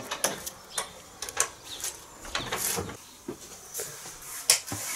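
Wooden shed door being unbolted and opened: a run of irregular clicks, knocks and rattles.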